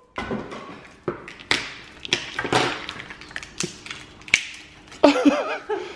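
Slime squelching and popping as it is squeezed out of its plastic tub: a run of sharp pops at irregular intervals.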